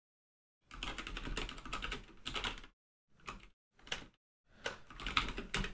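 Typing on a computer keyboard: a quick run of keystrokes for about two seconds, a couple of single key presses, then another short run near the end.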